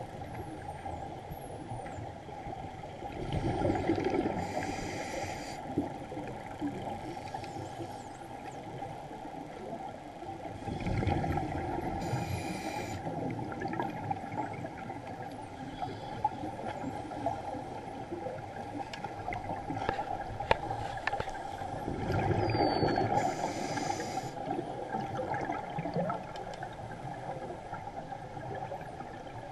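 Scuba diver breathing through a regulator underwater: three breaths about eight to eleven seconds apart, each a rumbling gush of exhaled bubbles followed by a short hiss from the regulator, over a steady underwater background noise.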